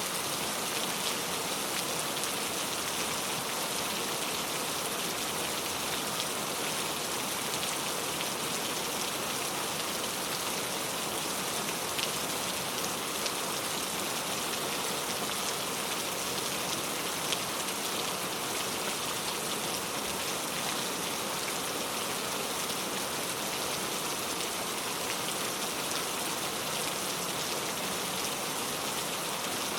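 Heavy rain falling steadily on a leaf-covered road, a dense even patter with the odd sharper drop tick.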